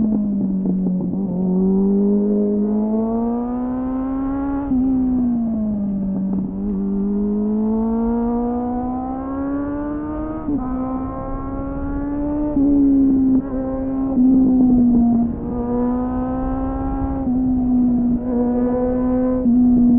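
A 2001 Suzuki GSF600 Bandit's inline-four engine through an aftermarket SC-Project-style exhaust with a dB killer, heard from the bike while riding. It pulls up in pitch several times, with sudden drops about five, ten and a half and twelve and a half seconds in, then holds a fairly even pitch with short louder bursts of throttle in the second half.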